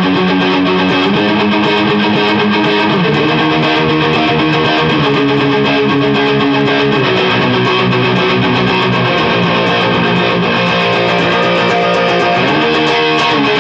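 Customized Fender Highway One Stratocaster electric guitar played through a modded Peavey Classic 50 tube head and a birch cabinet with original Celestion Greenback speakers, ringing out sustained chords that change every second or two.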